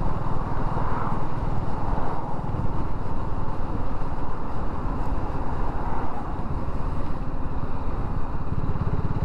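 BSA Gold Star 650's single-cylinder engine running steadily at road speed, with a steady rush of wind noise over the microphone.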